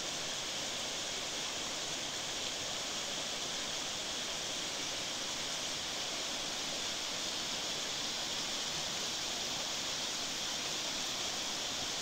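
Mountain stream rushing over rocks: a steady, even hiss of water that does not change.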